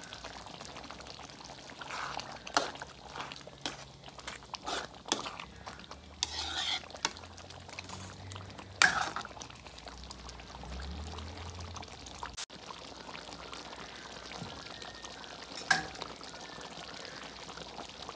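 Wooden spatula stirring thick dinuguan, a pork-blood stew, in a metal pan: wet sloshing with scattered knocks and scrapes of the spatula against the pan, the loudest knocks about halfway through and near the end.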